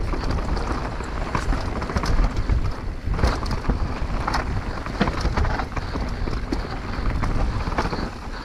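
Wind buffeting a helmet-mounted action camera's microphone during a fast mountain-bike descent. Over it come frequent short rattles and knocks from the bike jolting over rough ground.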